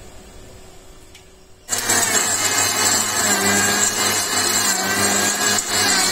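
Electric mixer-grinder with a stainless steel jar switching on about a second and a half in and running loud and steady, its motor whining as it blends milk, chocolate and ice cream into a milkshake.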